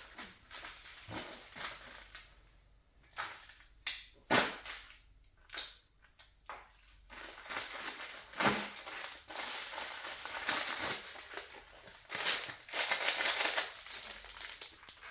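Plastic and cardboard packaging crinkling and crackling as new parts are unpacked, with a few sharp snaps about four to six seconds in.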